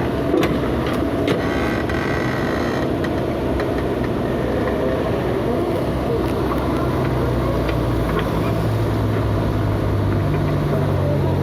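Diesel engine of an excavator working on building demolition, running steadily under scattered knocks and clanks. Its engine note rises in steps near the end.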